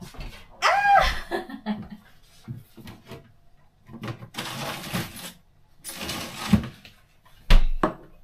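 A woman's short, pitched exclamation at a sip of sour, dry white wine, then two longer hissing sounds, and a sharp knock near the end.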